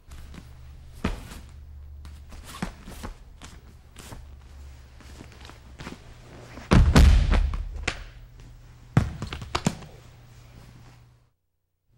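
Thuds, knocks and scuffing of people moving and falling on a training mat during a jiu-jitsu self-defence demonstration, over a steady low hum. The heaviest, longest thump comes about halfway through, with a few sharper knocks later. The sound cuts out briefly just before the end.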